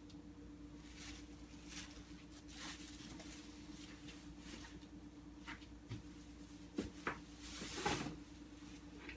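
Household handling noises: scattered soft knocks and rustles, with a couple of sharper knocks and a longer rustle about seven to eight seconds in, over a steady low hum.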